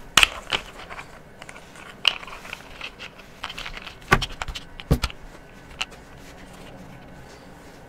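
Plastic highlighter markers clicking and knocking against one another as they are handled and lined up in the hand, a few sharp clicks with light rubbing between them, quieter over the last couple of seconds.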